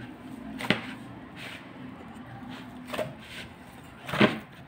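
Hands kneading a firm, oiled wheat-flour dough in a plastic bowl: soft pressing and squishing with a few short knocks, the loudest near the end, over a faint steady hum.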